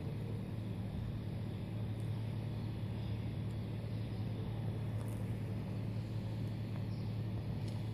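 A steady low mechanical hum, as of an engine or motor running, unchanging in pitch and level.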